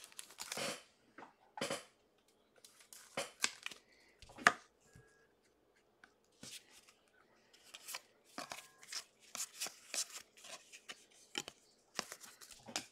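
Football trading cards being handled and sorted by hand: scattered short rustles, slides and taps of card stock, the loudest a sharp tap about four and a half seconds in.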